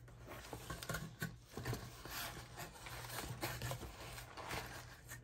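Crumpled kraft packing paper rustling and crinkling unevenly as it is handled and lifted out of a cardboard box, with a few sharper crackles.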